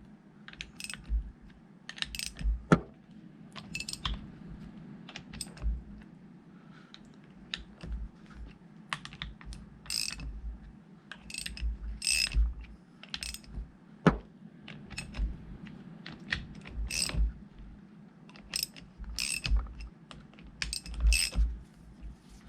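Hand ratchet wrench clicking in short, irregular spells as mounting bolts are tightened a little at a time, drawing the hydraulic pump evenly into place.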